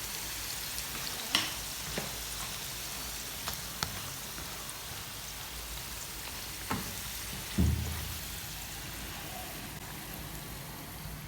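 Potatoes frying in hot oil, a steady sizzle: their second fry, to make them extra crunchy. A few sharp utensil clicks, and one louder knock about two-thirds of the way through.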